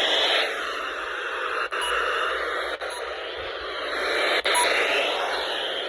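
Weather radio receiver hissing with static: a steady band of noise with a few brief dropouts.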